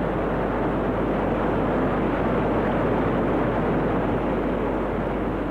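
A steady rushing noise with a low hum beneath it, swelling a little toward the middle.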